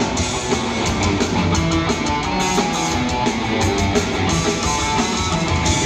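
Rock band playing live: an instrumental passage between sung lines, with electric guitars and drums.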